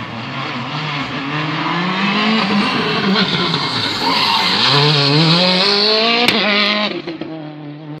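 Citroën DS3 rally car engine revving hard as the car slides sideways through a hairpin, its tyres skidding on the tarmac. The engine pitch dips and then climbs steeply about four seconds in, with a single sharp crack a little after six seconds, and the sound fades near the end.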